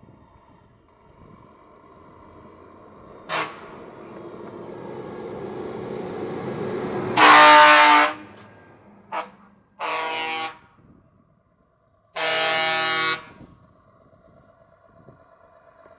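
Heavy truck's air horns blasting as it drives past: a brief toot about three seconds in, then a run of multi-tone blasts, the first and loudest about seven seconds in, then two short ones and a longer final blast. Under the first part the truck's engine grows steadily louder as it approaches.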